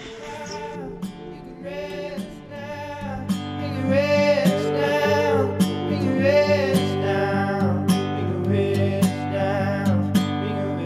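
Background music: an acoustic-guitar song with a sung melody and a steady plucked pulse, growing fuller about three seconds in.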